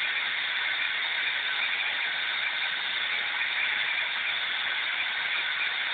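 Dental equipment running with a steady high hiss and whine that stays even and unbroken throughout.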